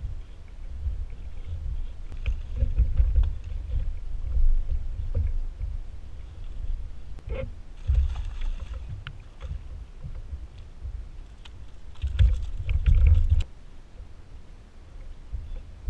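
Wind buffeting the microphone over water lapping at a kayak hull, with a splash about eight seconds in as a small fish is tossed back into the water. Another strong gust with a few clicks comes near the end.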